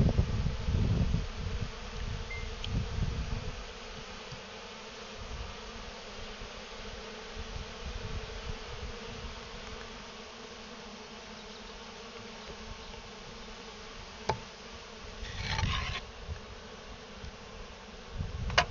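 A small swarm of honeybees, taken for local black bees, buzzing steadily around their opened hive and exposed comb. There is a low rumble in the first few seconds, a sharp click about fourteen seconds in and a brief rustle just after it.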